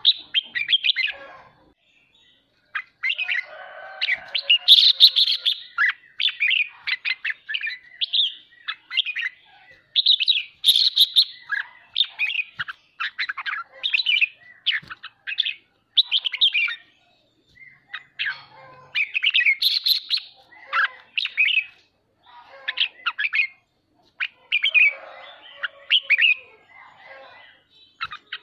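Red-whiskered bulbul singing its fast, chattering 'ché' song in short rapid phrases, each a second or two long, with brief pauses between them.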